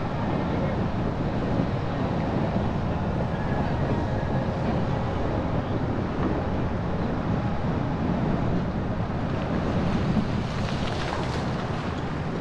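Steady road and wind noise from a car driving, with a low rumble that holds an even level throughout.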